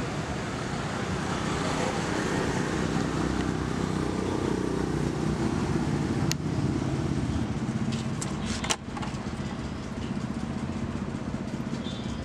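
Road traffic: a motor vehicle's engine running steadily, with a few sharp clicks about six and nine seconds in.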